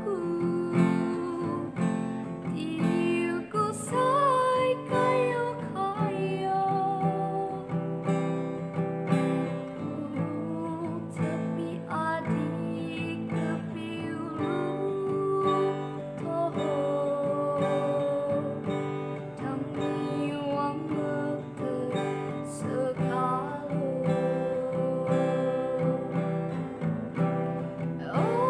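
A woman singing with long held notes, accompanying herself on a strummed acoustic guitar.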